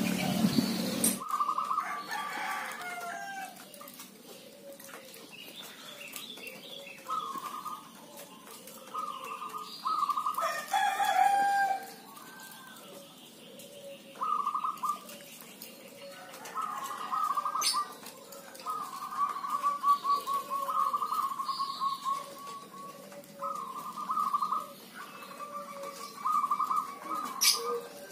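Zebra doves (perkutut) singing back and forth: repeated short trilled cooing phrases, with a row of softer low coos between. A rooster crows once about ten seconds in.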